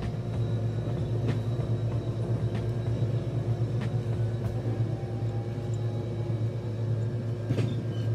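Steady low rumble of a Long Island Rail Road commuter train in motion, heard from inside the passenger car, with a faint steady hum and a few faint clicks.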